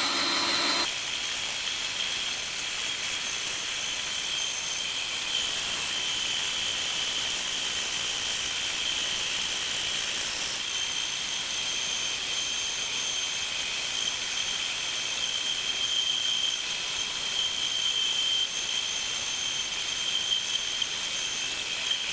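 Bandsaw running, its blade cutting into a spinning wooden log on a drill-driven lathe to rough it down and strip the bark. A steady hiss with a thin high whine, and a second, higher whine joining about halfway through.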